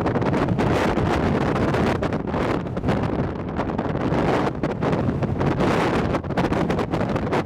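Strong wind buffeting the microphone: a loud, gusty rumble with rapid flutter and no steady tone.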